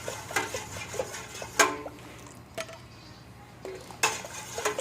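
Metal spoon clinking against a cooking pot and a condensed-milk can: a few sharp clinks with brief ringing, loudest about a second and a half in and near the end, with quieter scrapes between.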